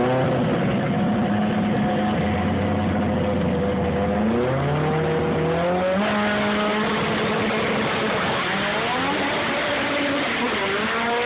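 Drag-racing car engines revving at the start line, held at a steady high pitch. They then launch and accelerate away, the engine pitch climbing and dropping with gear changes in the last few seconds.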